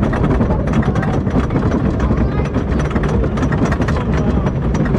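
Wooden roller coaster train being hauled up the chain lift hill: a steady low rumble of the lift chain with rapid clacking of the anti-rollback dogs.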